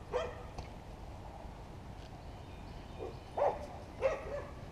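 A dog barking: one short bark just after the start, then a run of about four barks in the last two seconds.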